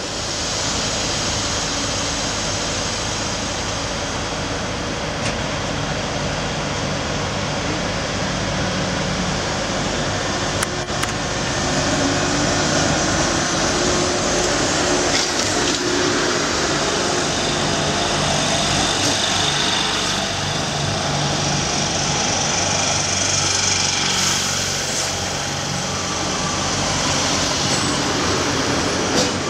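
Euskotren series 200 electric multiple-unit train moving past along the platform: a steady running hum of traction motors and wheels on the rails.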